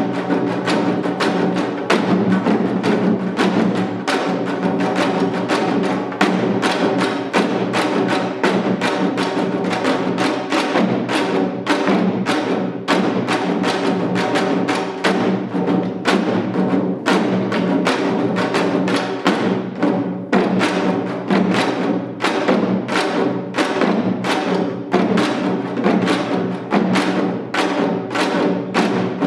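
Janggu, the Korean hourglass drum, played in seated seoljanggu style: a fast, unbroken rhythm of strikes on the drumheads.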